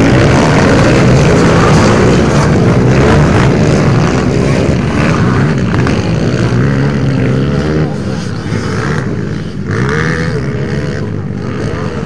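Several motocross dirt bikes racing past, their engines revving up and down in pitch as the riders work the throttle through the track. The sound is loudest in the first half and drops somewhat about eight seconds in as the bikes move away.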